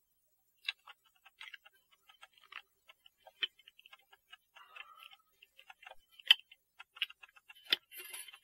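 Faint, irregular metallic clicks and ticks from a clock mainspring being worked in a mainspring winder, with a few sharper clicks now and then.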